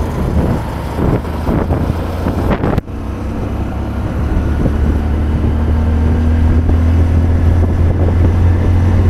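Hero Hunk single-cylinder motorcycle engine running at road speed, with wind rushing over the microphone. The sound drops out briefly about three seconds in, then the engine note steadies and slowly grows louder.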